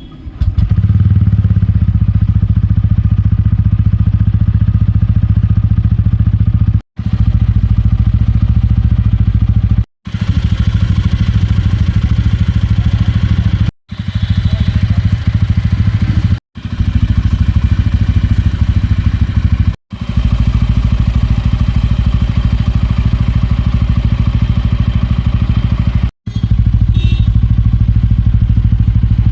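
TVS Ronin 225cc single-cylinder motorcycle engine starting about half a second in, then idling steadily through its stock exhaust with an even low note and no revving. The sound drops out briefly six times.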